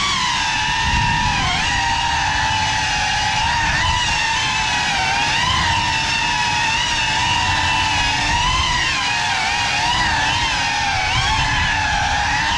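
Indoor FPV drone's motors and propellers whining, the pitch rising and falling with throttle changes, over a low rush of propeller wash on the onboard microphone.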